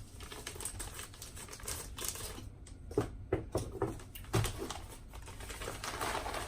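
A shipping package being handled and opened: scattered clicks, taps and rustles of cardboard and plastic packaging, with a few sharper knocks midway.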